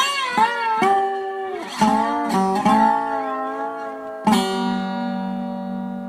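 Background music: a plucked-string melody whose notes bend and slide, then a chord struck about four seconds in that rings on.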